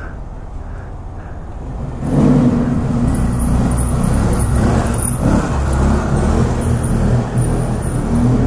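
Motorcycle engines running, getting louder about two seconds in and staying up as a rider wheelies a small motorcycle nearby.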